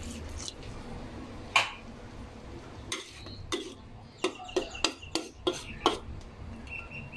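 Metal spatula knocking and scraping against a wok while stirring chopped bottle gourd. One knock comes early, then a run of sharp clinks, about three a second, in the second half.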